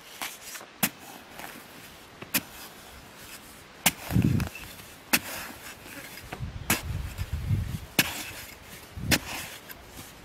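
A metal digging blade on a wooden handle chopping into dry, hard-packed soil, about seven sharp strikes roughly every second and a half, with loosened dirt crumbling and sliding between strikes.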